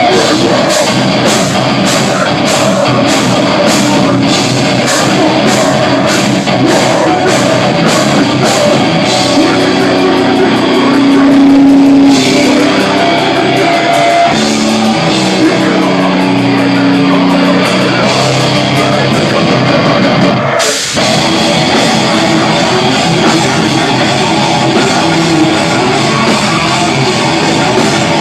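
Loud heavy rock music with guitar and a drum kit, the drums hitting in a steady beat; the band cuts out for a moment about three-quarters through, then comes straight back in.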